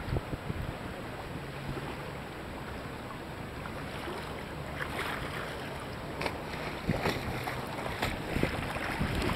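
Sea kayak paddle strokes splashing and choppy water slapping against the kayak, with wind on the microphone; the splashes grow louder near the end.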